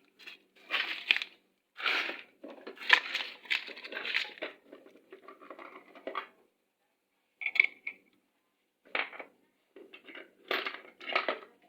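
Irregular clattering and clinking of small metal and plastic scooter CVT parts being handled, in bursts with short pauses.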